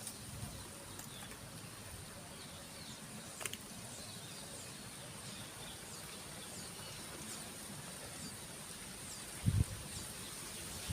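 Small birds chirping: short, high, falling notes repeated about once a second over a steady high-pitched hiss. A sharp click comes about three and a half seconds in, and a low thump near the end.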